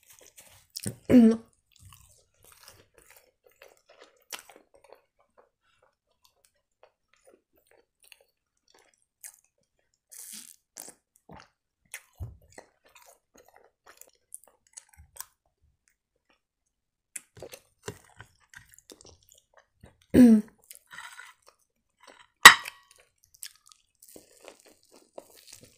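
Close-up mouth sounds of a person chewing chicken-filled crepes (blini): sparse small wet clicks and smacks. Two short louder mouth sounds come about a second in and around twenty seconds in, and a single sharp click a few seconds before the end is the loudest moment.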